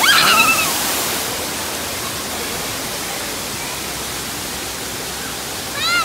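Steady rush of a waterfall pouring into a pool. A child's short high-pitched squeal comes right at the start and another just at the end.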